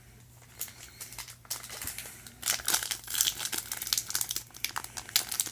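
Plastic foil wrapper of a trading card pack crinkling as it is handled and opened. The crackle starts sparse and grows busier about halfway through.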